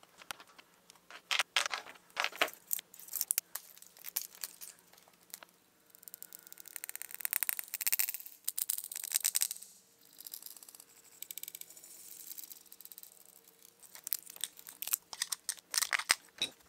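Leftover plastic being picked, peeled and snapped off small 3D-printed plastic parts by hand: irregular crackling and clicking, with dense runs of rapid clicks about six to ten seconds in and again near the end, when pliers are used.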